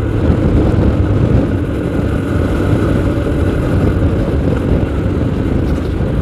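Moto Morini X-Cape 650 parallel-twin motorcycle cruising at road speed, its engine running steadily under the rush of riding, heard from a helmet-mounted camera.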